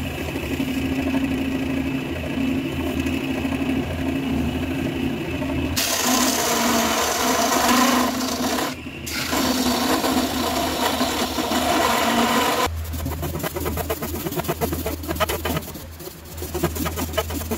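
Wood lathe motor running with a steady whine while a spinning pot is sanded by hand. About six seconds in, this gives way to a louder hiss of wood shavings being swept with a broom. Near the end come quick, rapid scraping strokes as shavings are cleared off the lathe bed.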